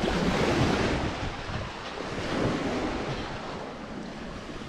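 Sea waves washing and breaking in the surf, with wind rumbling on the microphone.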